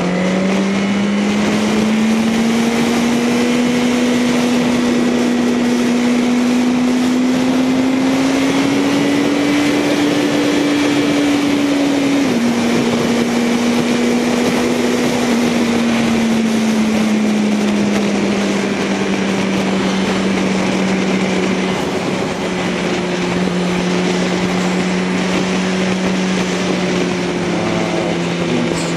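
Yamaha R1 inline-four engine at highway cruise over a steady rush of wind. Its pitch climbs slowly, drops abruptly with an upshift about twelve seconds in, then eases lower and holds steady as the bike slows.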